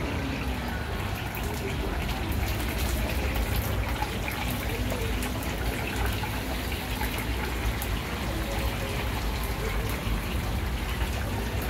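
Hot oil in a stainless-steel deep fryer sizzling steadily with many small crackles as battered chicken pieces fry in it.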